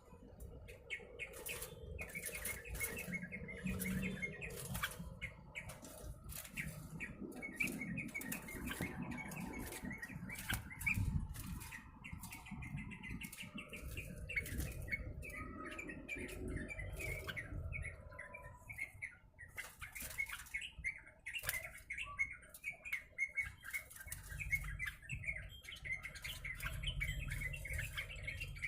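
A caged trucuk (yellow-vented bulbul) fluttering and flapping its wings in quick bursts, with short chirps mixed in throughout.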